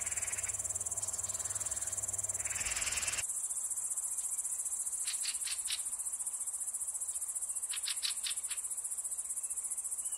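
Steady high-pitched chirring of insects, a dense, fast pulsing, with two short runs of quick ticks about five and eight seconds in.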